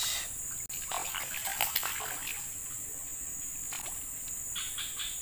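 A hooked fish splashing and thrashing at the surface of a shallow ditch, in irregular bursts around one to two seconds in and again near the end. A steady high insect buzz carries on underneath.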